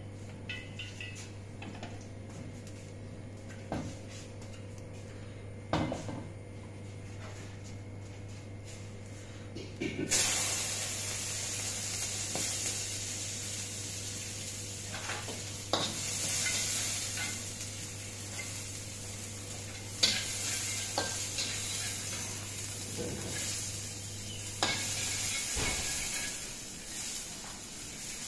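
Vegetables sizzling as they stir-fry in a hot wok, the sizzle starting suddenly about a third of the way in, with a metal spatula clanking and scraping against the wok several times. Before the sizzle there is only a steady low hum and a couple of knocks.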